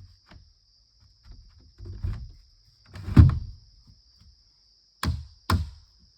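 A few dull thuds, the loudest about three seconds in, then two sharp knocks about half a second apart near the end.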